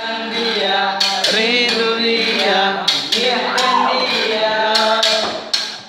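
Several young male voices singing together to a strummed acoustic guitar, with sharp percussive knocks beating time.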